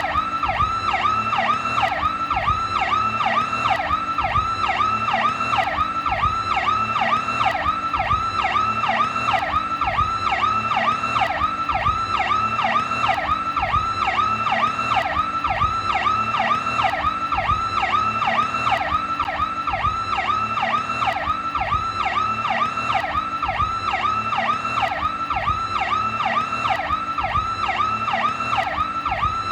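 New York police car's Powercall electronic siren sounding continuously: a fast warble of short up-and-down pitch sweeps, about three a second, steady and unbroken.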